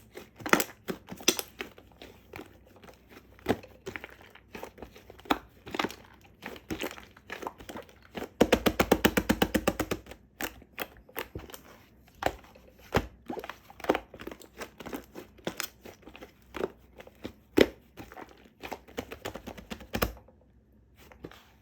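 Scattered crunches, crinkles and light taps from handling an Oreo cookies-and-cream macaron topped with a biscuit, with a quick run of rapid clicks about eight seconds in.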